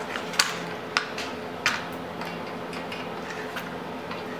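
Steel pliers and a screwdriver clicking and scraping against the drum brake shoes and a tensioned shoe return spring while the spring is pried off: three sharp metal clicks in the first two seconds, then a few fainter ticks over a faint steady hum.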